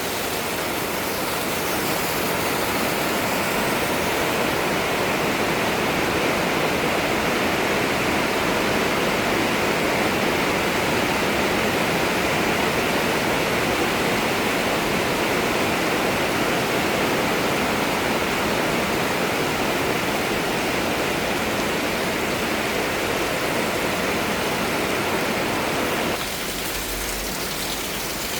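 Heavy monsoon downpour, with rainwater pouring off the building in a sheet like a waterfall: a steady, loud rush of falling water. It drops a little in level about two seconds before the end.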